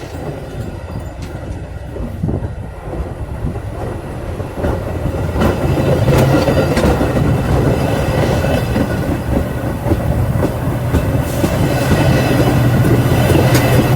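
Train passing close by on the rails, its wheels clicking over the rail joints; it grows louder about five seconds in and stays loud.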